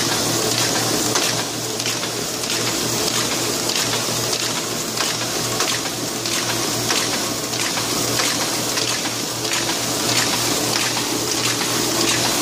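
Ryobi 500N offset printing press running: a steady mechanical hum under a strong even hiss, with faint regular ticking from the cycling mechanism.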